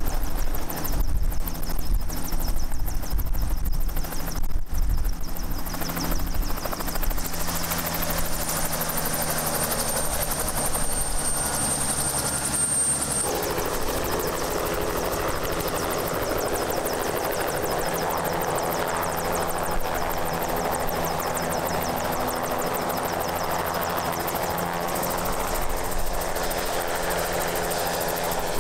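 An agricultural spray helicopter's rotor and turbine engine running as it hovers onto the tender truck's loading rack to reload and then lifts off again, with a high turbine whine in the first half.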